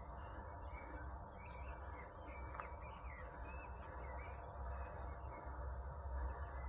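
Crickets trilling steadily at a high pitch in a grassy meadow, with short bird chirps over them and a low rumble underneath.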